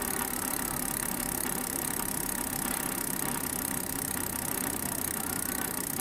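Novatech D762TSBT rear hub's freehub ratchet running as a steady, fast buzz of clicks while the mountain bike's rear wheel freewheels.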